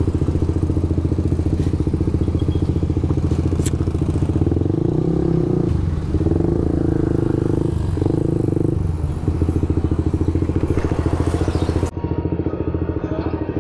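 Suzuki GSX-S150's single-cylinder engine running at idle through a loud aftermarket SARP exhaust, with a few short light blips of throttle in the middle.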